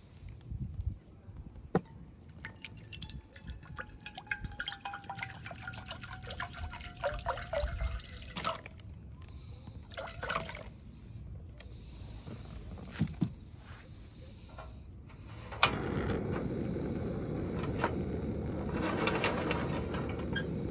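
Water pouring from a plastic bottle into an aluminium saucepan, splashing and trickling in uneven spurts. About three-quarters of the way through, a sharp click and the steady hiss of a portable cassette gas stove's burner lighting under the pan.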